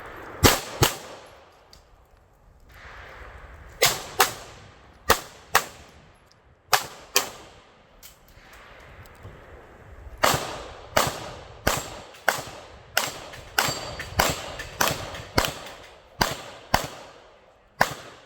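Gunshots from a shooter working through a stage: shots in pairs with pauses between them, then a faster string of about a dozen shots near the end.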